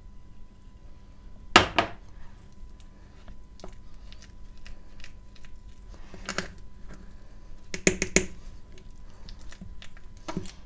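Pieces of dry edible clay and a utensil knocking and clinking against a bowl as they are added to a clay paste: four short bursts of sharp knocks, the loudest about one and a half seconds in, with quiet handling sounds and a faint steady hum between them.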